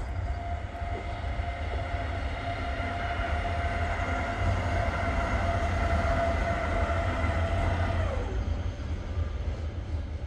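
Class 145 electric locomotive running light past, a steady whine from its traction equipment that swells as it approaches and drops in pitch as it passes, about eight seconds in, over a low rumble.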